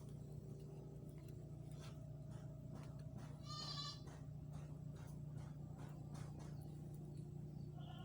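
A short, wavering animal call about halfway through, over a steady low hum and faint scattered clicks.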